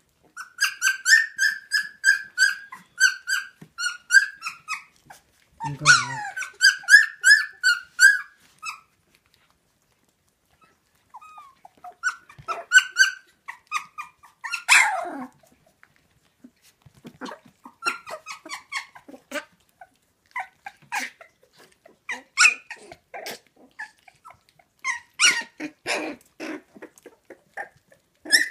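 Young puppies whining in quick high squeaky cries, several a second, for about eight seconds, wanting to get out to their mother. After a short lull come scattered whimpers mixed with short clicks.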